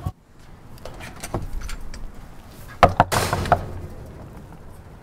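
A fist knocking on an apartment door: a quick run of about four loud knocks about three seconds in.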